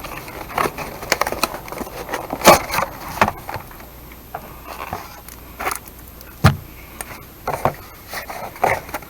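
Trading cards and their packaging being handled on a tabletop: irregular light scrapes and clicks, with one louder knock about six and a half seconds in.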